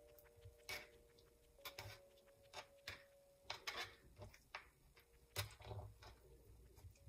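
Near silence broken by faint, irregular clicks and taps of hands folding and pinching samsa dough on a plastic cutting board.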